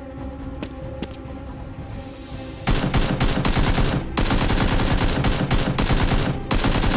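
Dubbed-in machine-gun sound effect: dense, rapid automatic fire starts about a third of the way in and runs on with two brief breaks. Before it, background music with a few soft clicks.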